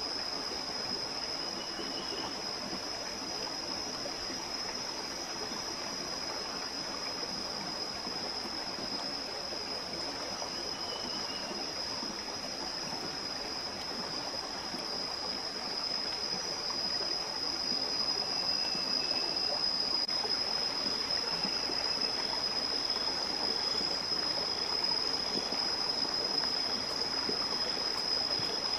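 Steady forest ambience: a rushing sound like a nearby stream, under an unbroken high insect drone, with a few faint short bird chirps. It gets a little louder about two-thirds of the way through.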